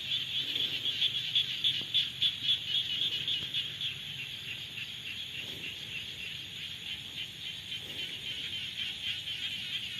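A rainy-season chorus of many frogs calling together: a dense, high-pitched pulsing din. It is louder and more uneven in the first few seconds, then settles into a steadier chorus.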